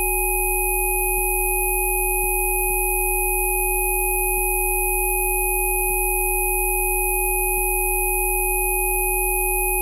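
Synthesized frequency-therapy tones: several pure sine tones sounding together as one unchanging electronic drone, a low hum under a strong mid tone with fainter higher whistles above.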